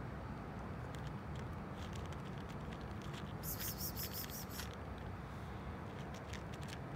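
A cat eating dry kibble, with small crisp crunching clicks scattered over a steady low background rumble. About halfway through, a brief run of rapid high-pitched pulses lasts about a second.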